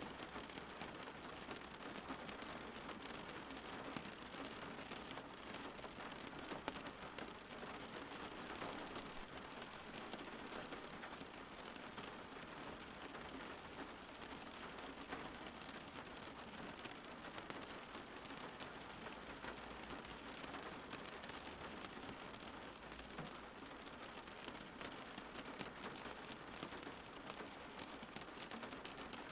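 Steady rain falling, an even, unbroken patter of many drops.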